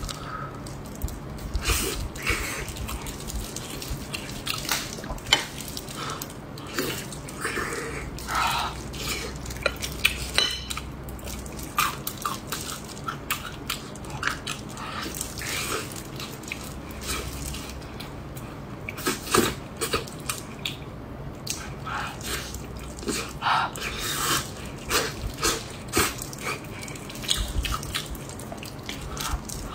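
Wet chewing and biting of gelatinous braised pork-skin rolls, with short sticky smacks and squelches at irregular intervals.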